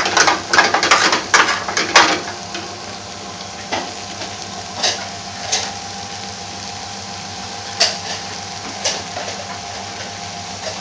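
A utensil scrapes and clicks against a metal frying pan as strips of potato are stirred for about the first two seconds. The nearly cooked potatoes then sizzle steadily in the oil, with an occasional single knock against the pan.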